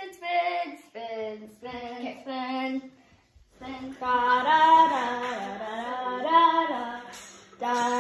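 Girls singing without accompaniment: a few short held notes, then after a brief pause a longer, louder sung phrase.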